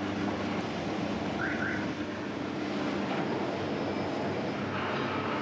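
Steady low hum of bakery machinery running, with two short squeaks about a second and a half in.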